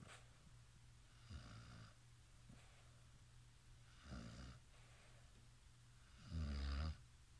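Sleeper snoring, one snore about every two and a half seconds; the third, near the end, is the loudest and longest. A steady low hum runs underneath.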